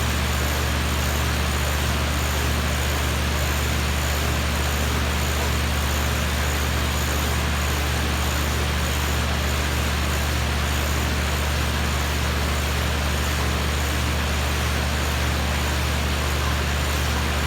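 2004 Lennox Elite series 4-ton central air conditioner condensing unit running steadily: a constant low hum from its Copeland Scroll compressor under an even rush of air from the condenser fan.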